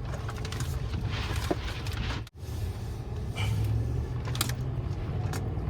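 Steady low rumble of a vehicle heard from inside the cab, with a few light clicks and knocks, and a brief cutout a little over two seconds in.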